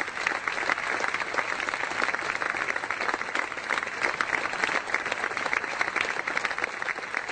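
An audience applauding, a dense, steady patter of many hands clapping.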